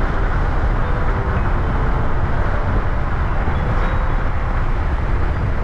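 Steady road and wind noise of a moving car, heard from inside the cabin: a loud, even rumble heaviest in the low range.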